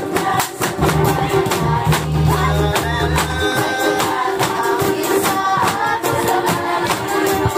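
Tinikling music with singing over a quick, steady clacking beat from bamboo poles being struck together and on the floor.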